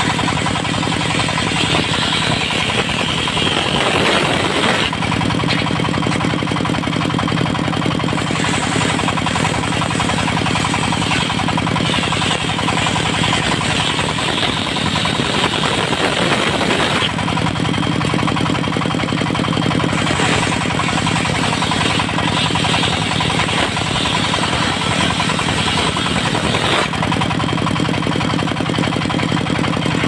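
Large table-mounted circular saw blade ripping small teak boards into battens over a steady-running drive engine. The cutting noise swells over the engine in three long cuts, each lasting several seconds.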